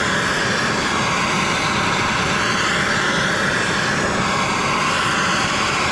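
Gas torch flame burning with a steady rushing roar as it heats the steel bearing bore of a rear axle housing, expanding it so that a chilled wheel bearing will press in.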